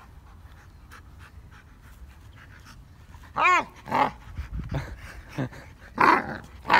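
A Dogo Argentino making vocal noises during rough play on its back. About halfway through it gives a short whining cry that rises and falls in pitch, followed by several short, breathy huffs and grunts toward the end.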